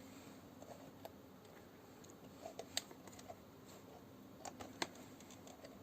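Quiet room tone with a faint low hum and a few light clicks, two sharper ones about three and five seconds in.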